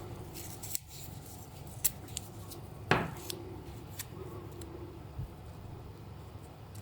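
Scattered small clicks and taps of hard objects being handled, with one sharper knock about three seconds in, over a steady low hum.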